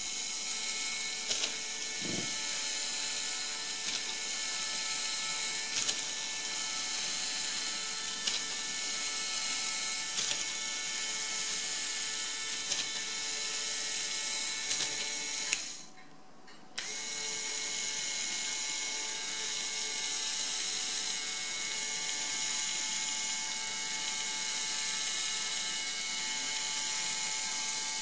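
LEGO Technic four-legged walking robot driven by a Power Functions M motor: the small electric motor runs with a steady whine while its plastic gear train ticks and rattles. The motor stops about halfway through and starts again about a second later.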